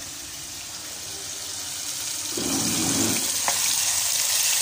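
Sliced bitter gourd sizzling in hot oil in a non-stick kadai, the hiss growing louder about halfway through, with a brief stir of a wooden spatula. The washed pieces are giving up their water into the oil.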